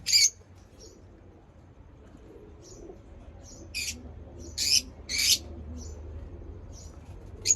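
Lovebirds chirping: short, sharp, high-pitched calls, one loud at the start, three loud ones in quick succession around the middle and another at the end, with fainter chirps between.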